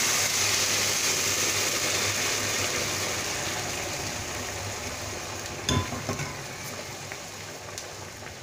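A milk-and-water mixture hits a pan of hot fried rice, sizzling loudly and then settling into a boil that fades steadily. There are a couple of light knocks about six seconds in.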